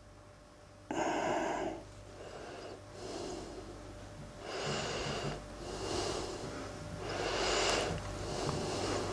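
A man breathing heavily through his nose, with a sudden loud snort-like breath about a second in and then about half a dozen noisy breaths, roughly one every second or so.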